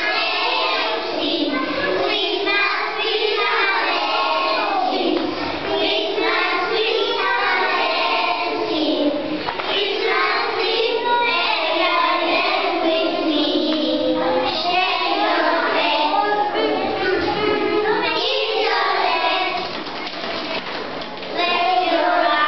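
A recorded children's song: a group of children singing together over an instrumental backing, cutting in suddenly.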